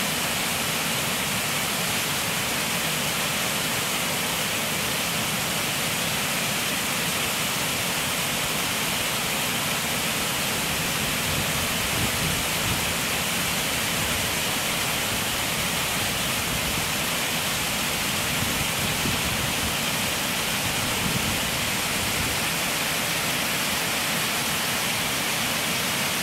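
Paulina Falls, a double waterfall, pouring over a rock ledge: a steady, even rush of falling water.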